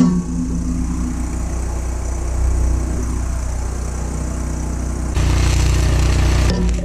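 An engine running at a steady idle, a low even drone. A louder rush of noise joins it for about a second and a half near the end.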